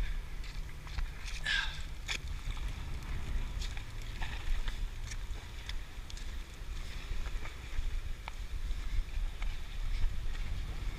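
Wind rumbling steadily on the microphone, with scattered light clicks and taps throughout.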